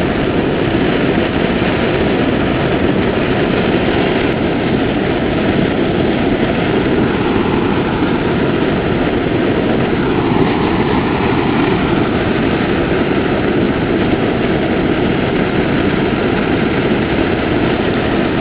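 Forced-air furnace running with its blower on: a steady rushing noise as a tall flame jets from the vent hole in the sand mound.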